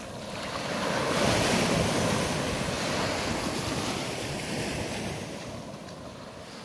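Surf rushing in with wind on the microphone: a wash of noise that swells over the first second or so, then slowly dies away.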